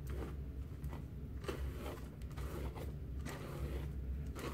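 Faint rustling and light clicks of things being handled, over a steady low hum.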